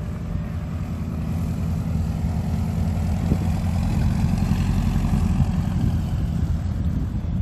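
A single-engine STOL bush plane's engine and propeller, passing low and close as it lands slowly, growing louder through the first half.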